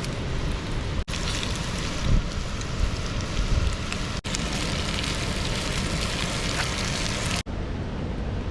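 Fish pieces sizzling in a hot pan as a steady hiss, with wind rumbling on the microphone. The sound drops out for an instant three times.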